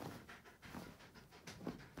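Wolf dog panting in short, uneven breaths while its nose is down in the bedding.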